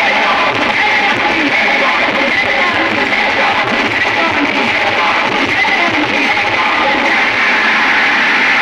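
Loud, continuous music that fills the middle of the range and has little deep bass.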